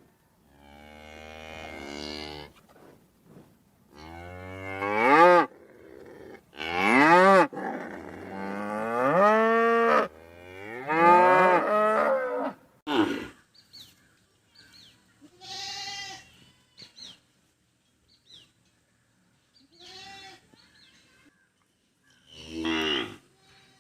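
Cow mooing again and again: about five long, loud moos that glide up and down in pitch, then a few shorter, fainter calls in the second half.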